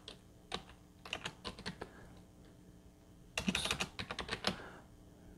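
Typing on a computer keyboard: scattered single keystrokes, then a quick run of keys about three and a half seconds in.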